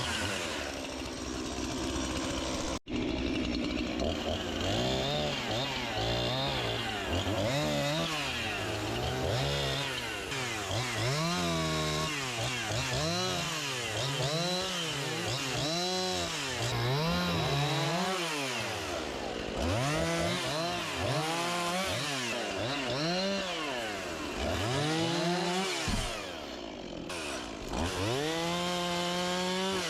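Gas chainsaw revving up and easing off again and again, over and over, as it cuts through a wind-thrown spruce. The sound drops out sharply for an instant about three seconds in.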